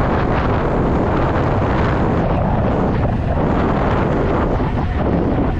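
Steady, loud wind noise buffeting the microphone of a rider on an electric dirt bike at speed.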